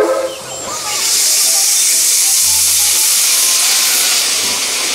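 Steam locomotive venting steam from its cylinder drain cocks: a loud, steady hiss that starts about a second in.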